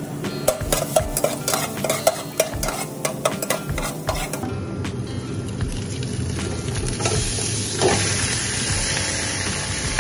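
Minced garlic frying in oil in a stainless steel pot while a metal spatula stirs it, with many sharp scrapes and taps on the pot over the sizzle. From about seven seconds in, raw chicken pieces are in the pot and a stronger, steady sizzle takes over.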